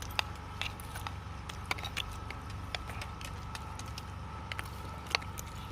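Scattered light clicks and taps of dishes and serving spoons, over a steady low hum.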